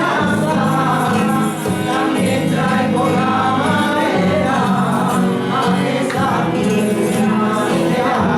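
Music: a villancico, a Spanish Christmas carol, sung by voices over a steady tambourine accompaniment.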